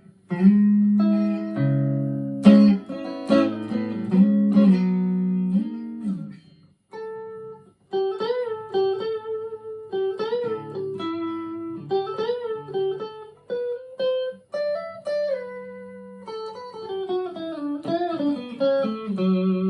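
Harley Benton ST-25th Strat-style electric guitar played clean through a small Marshall amp. For about the first six seconds it plays chords, then a single-note melody with string bends and vibrato.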